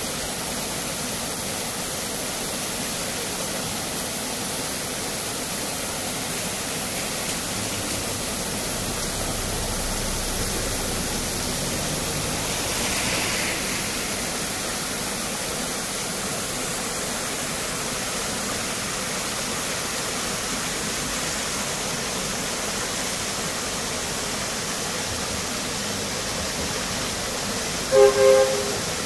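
Steady rush of a shallow stream running over stones. Near the end come two short hoots from the miniature railway locomotive, the loudest sound here.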